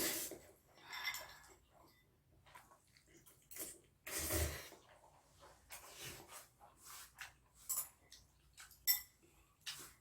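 Scattered light clinks and taps of cutlery and dishes on a table during a meal, with a dull thump about four seconds in.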